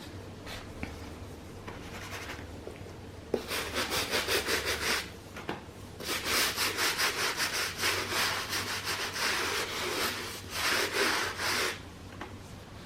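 Rapid back-and-forth rubbing strokes on a sneaker, about four or five a second, in three spells starting a few seconds in, the longest lasting about four seconds.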